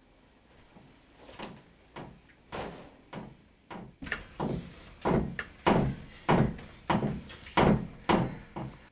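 A steady series of heavy thumps or bangs, about one every half second, starting faint about a second in and growing louder towards the end.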